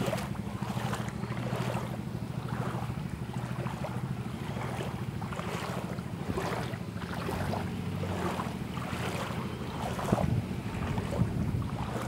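Steady rush of muddy floodwater over a submerged road, mixed with wind buffeting the microphone.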